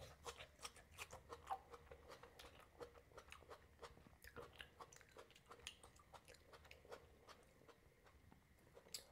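Faint, close-miked chewing of raw salad after a bite of tomato slice: a run of many small clicks, several a second, thinning out in the second half.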